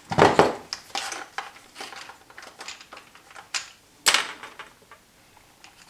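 Small tools and hard parts handled on a workbench: a scattered run of clicks, taps and light scrapes, loudest just after the start and again about four seconds in.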